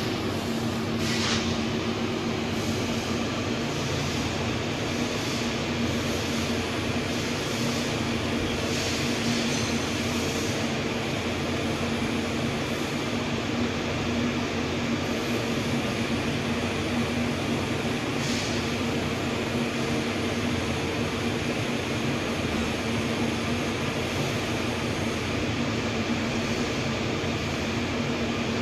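Steady machine noise with a constant low hum, like running cooling fans, with a few light clicks now and then.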